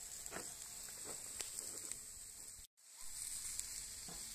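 Pork steaks sizzling faintly on a hot cast-iron grill grate over charcoal, a steady high hiss with a few light crackles. The sound drops out for a moment about two-thirds of the way in.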